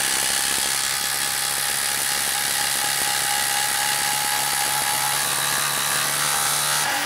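Milwaukee M18 Fuel brushless impact driver hammering continuously as it drives an 8-inch lag screw into a wood stump. It cuts off abruptly near the end.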